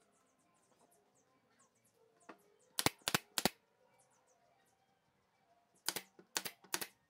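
Pneumatic brad nailer firing into pine frame joints: three sharp shots in quick succession about three seconds in, then three more near the end.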